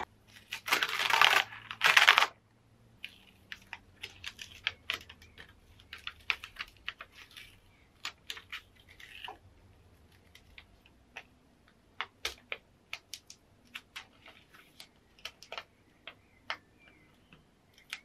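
Printed sticker paper being handled and its waste sheet peeled back from the cut stickers: two louder rustling bursts in the first two seconds, then a long run of small irregular crackles and ticks. The cut has not gone fully through the sheet, so the paper parts in little tearing crackles.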